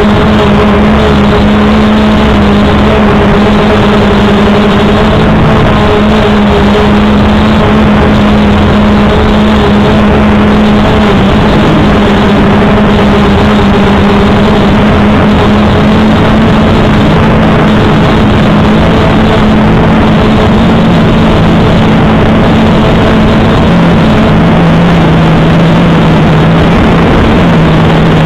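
Quadcopter drone's motors and propellers buzzing loud and steady, picked up by the camera riding on the drone. Several close pitches hum together, and some step a little lower about twelve seconds in and again near the end as the motor speeds change.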